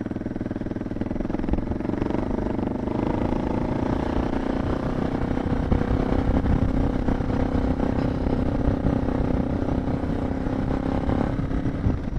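Suzuki DR650's single-cylinder four-stroke engine pulling steadily under load on a climb. It grows a little louder about two seconds in, and the engine note drops near the end.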